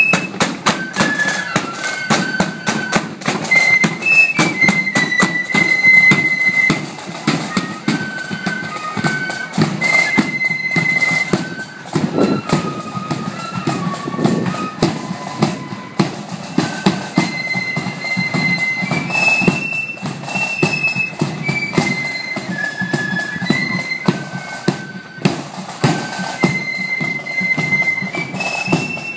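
Marching flute band playing a tune in unison on high-pitched flutes, with a steady beat underneath.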